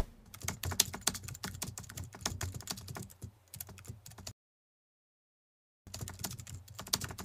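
Computer keyboard typing sound effect: rapid key clicks in two runs, stopping about four seconds in and starting again about a second and a half later.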